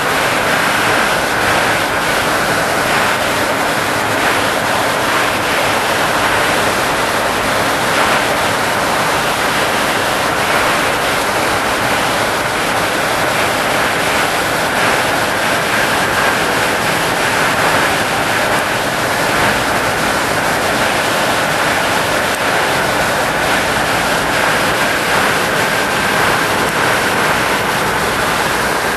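Steady rushing airflow noise on a Boeing 747 flight deck at cruise at 33,000 feet, with a faint high whine held underneath.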